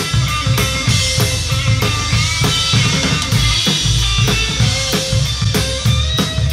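Live rock band playing, with drum kit, electric guitars and bass; the drums keep a steady beat under sustained guitar and bass notes.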